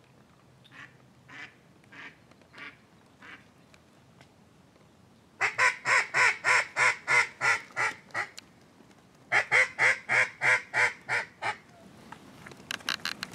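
Mallard quacking: a few faint quacks in the first few seconds, then two loud runs of about ten quacks each, about three a second, starting about five and nine seconds in.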